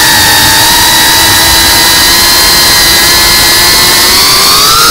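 FPV racing quadcopter's motors and propellers whining loudly at a steady pitch in fast level flight, rising in pitch near the end as the throttle is pushed.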